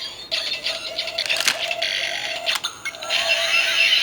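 Kamen Rider Faiz Legend Rider Eyecon toy playing its electronic finisher sound effect: a steady synthesized tone with a couple of sharp clicks, then a louder wash of sweeping electronic tones near the end.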